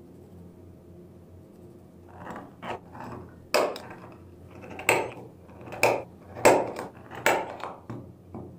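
A run of sharp knocks of a small hand tool against a wooden strip lying on a wooden workbench, marking the wood. They start soft about two seconds in, then come harder at roughly one a second.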